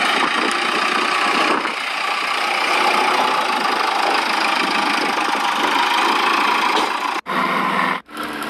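Remote-control model excavator at work, giving a steady, engine-like mechanical running sound. About seven seconds in it cuts off abruptly, and a shorter, lower-pitched stretch of it follows.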